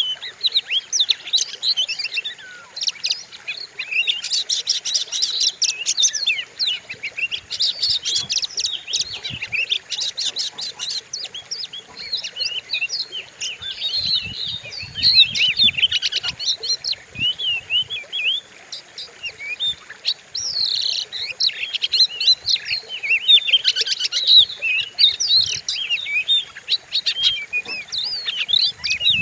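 Oriental magpie-robin (kacer) singing a fast, unbroken string of chirps, trills and whistles, the fierce song played as a bait track to provoke another kacer into singing.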